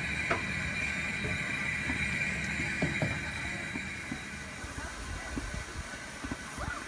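A standing 1913 steam locomotive hissing steam steadily, a high hiss over a low rumble that eases off after about four seconds, with a few faint knocks.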